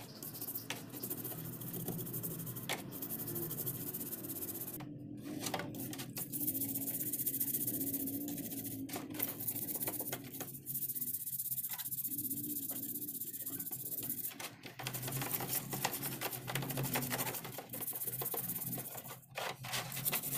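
A stiff-bristle brush scrubbing soapy plastic housing parts of a Makita angle grinder in a metal tray of water, with fast rasping strokes and splashing that pause briefly now and then.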